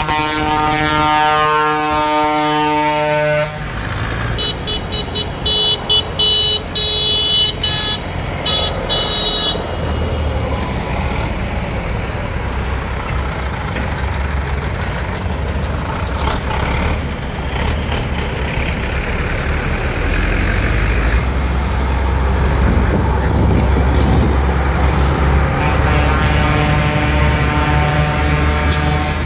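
Vehicle horns from a passing protest convoy: a long steady horn blast for the first three seconds or so, then a high-pitched horn beeped in quick short blasts for about five seconds. Then the low running of a tractor diesel engine going past, and near the end another long horn blast.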